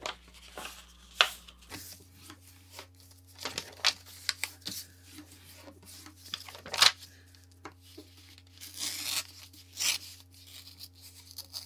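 A sheet of paper folded back and forth along a crease and torn by hand: scattered sharp crackles and rustles of the creasing, then a longer tearing sound about three quarters of the way through as the sheet rips along the fold.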